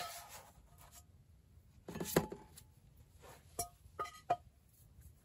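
Cooking utensil scraping and clinking against a pan: a short scrape, a louder clatter about two seconds in, then three quick ringing clinks.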